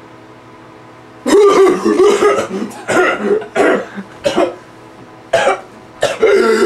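A man coughing hard in repeated harsh fits, starting about a second in, after inhaling smoke through a homemade tube pipe.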